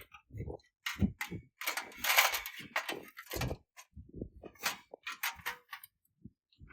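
Irregular knocks, clicks and low thumps of gear being handled, with a longer rustle about two seconds in.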